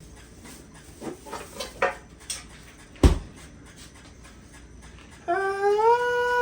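A few light clinks of tools and parts and one sharp knock about three seconds in, then a person starts humming a held note that steps up and down in pitch.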